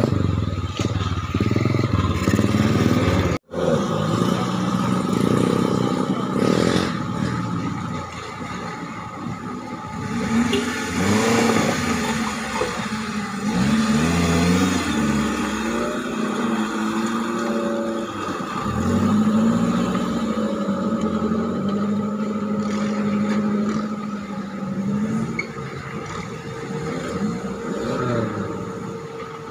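Small Suzuki Jimny 4x4s driving through a shallow river, engines revving up and down as they push through the water, with water splashing. The sound cuts out for an instant about three and a half seconds in.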